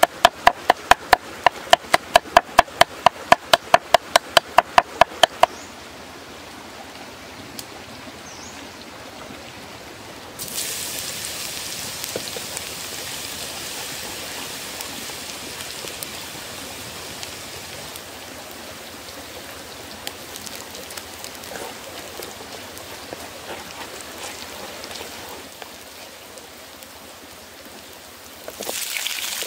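Knife chopping garlic and shallots on a wooden chopping block, about four quick strokes a second, stopping after about five seconds. About ten seconds in, garlic goes into hot oil in a wok and sizzles steadily, and a fresh, louder sizzle starts near the end.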